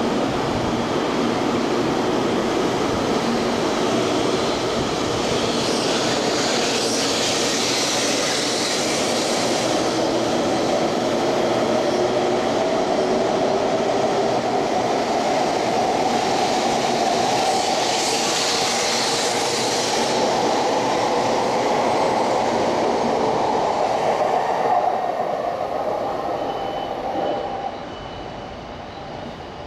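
Taiwan High Speed Rail 700T electric train pulling out and accelerating past along the platform: a steady rush of wheels and air with a whine that slowly rises in pitch, and two louder hissing swells. The sound drops off sharply near the end as the last car clears.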